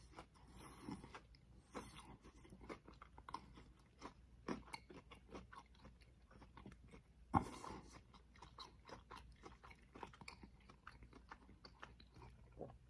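A person chewing crunchy seasoned pita chips close to the microphone: a run of faint, irregular crunches, with one louder crunch about seven seconds in.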